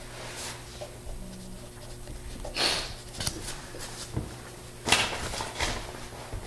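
Room tone in a quiet meeting room: a steady low hum, broken by two short hissy noises about two and a half and five seconds in.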